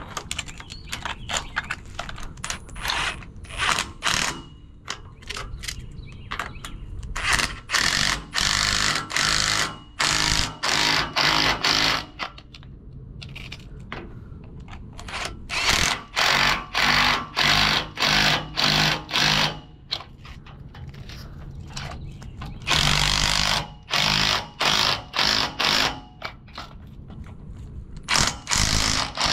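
Cordless power tool running in short bursts of about half a second, over and over with brief pauses, driving nuts down onto the U-bolts of a boat trailer's leaf spring.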